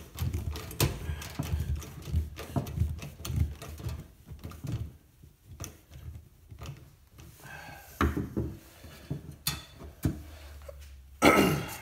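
Hand tool working at a screw on a PVC and steel tape-measure antenna element: a run of small clicks and knocks for about four seconds, quieter after that. A few louder knocks follow, one near the end, as the PVC pipe is handled.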